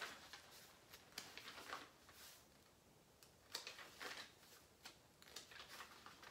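Faint rustling of paper pages as a notebook is leafed through, a series of soft, short flicks and rubs.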